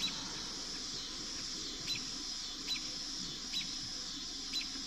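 A bird's short, sharp chirps repeated about once a second, over a steady high hiss of outdoor background.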